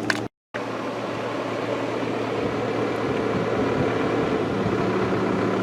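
Steady car engine and road noise heard from inside the vehicle, a low even hum, which cuts out completely for a moment just after the start; a steady low tone joins the hum near the end.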